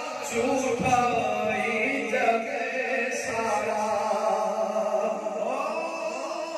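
A man's voice chanting in a melodic, sung style, holding long notes that slide in pitch, with a rising glide near the end.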